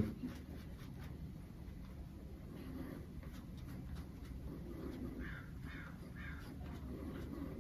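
Quiet room tone with a few faint, short cries in the distance: two about three seconds in, then three in a row around five to six seconds.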